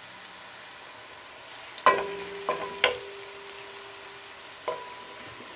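Food frying in hot oil in a pan with a steady sizzle, while a metal utensil strikes the pan four times, each clank ringing on briefly.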